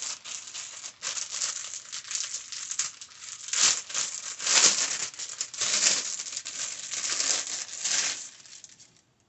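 A pack of face masks being handled and opened: its packaging crinkles and rustles in irregular bursts, the loudest a few seconds in, stopping about nine seconds in.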